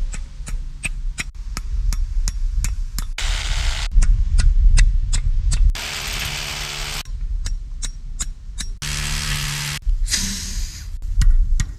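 Hammer drill boring into concrete in about four short bursts of a second or so each, drilling anchor holes to fix a sliding-gate track. A steady series of sharp ticks, about three a second, runs between the bursts.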